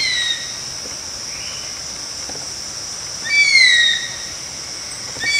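A bird gives a loud, downward-sliding whistled cry about every two seconds, over a steady high insect drone.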